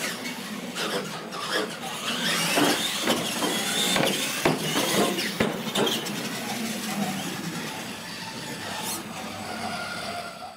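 Radio-controlled monster trucks racing, their electric motors whining up and down in pitch, with sharp knocks and clatter from the trucks hitting the ramps and the hard floor. The action is busiest in the first half, then settles to a steadier, quieter running sound.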